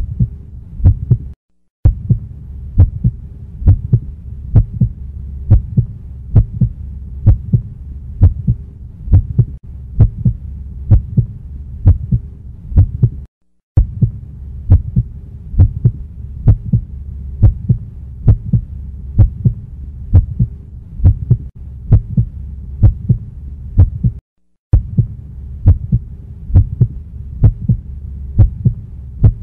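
Heartbeat soundtrack: regular low beats, a little faster than one a second, over a steady low hum. It breaks off to silence for a moment three times, as if looped.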